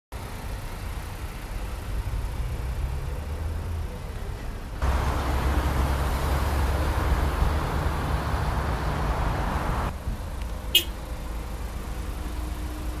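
Road traffic noise with a steady low rumble, louder for about five seconds in the middle. A single sharp click about eleven seconds in, followed by a faint steady tone.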